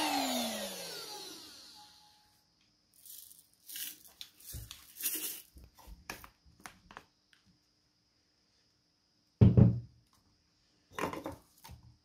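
Eufy HomeVac H11 Pure handheld vacuum's motor winding down, its whine falling in pitch and fading out within about two seconds. Then scattered plastic clicks and rattles as the vacuum is handled and its dust cup opened, with a louder knock about nine and a half seconds in.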